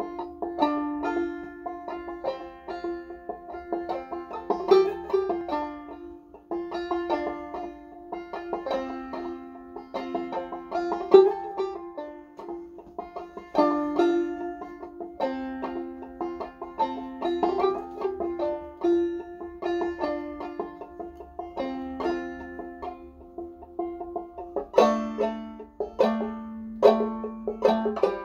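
Solo banjo played clawhammer style: a steady old-time tune of quick plucked and brushed notes in repeating phrases. It drops to a lower passage near the end.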